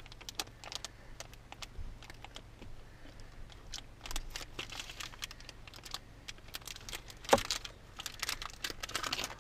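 Small blade clicking and scraping through a block of cheese in irregular light strokes, with faint crinkling of plastic. One sharper click about seven seconds in.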